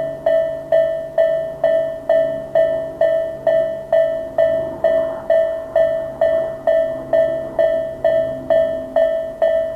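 Japanese railway level crossing's electronic warning bell (the Tobu type A sound) ringing a little over twice a second, each strike a bright tone that quickly fades, signalling that a train is approaching and the gates are down.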